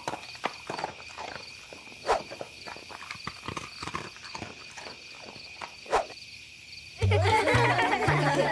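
A run of light, irregular taps and clicks, with two louder knocks, one about two seconds in and one about six seconds in. Background music comes in about a second and a half before the end.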